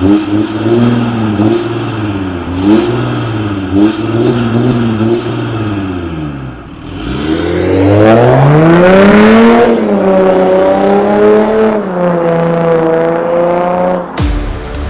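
Daewoo Nexia's four-cylinder engine being revved through a sound-tuned exhaust: several quick throttle blips, then a long rev climbing to high revs that falls back and holds at a steadier rev before cutting off abruptly near the end.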